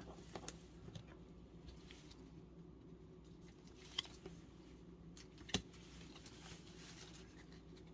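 Faint handling of trading cards: a few soft clicks and rustles as cards are shuffled through by hand, over a low steady room hum.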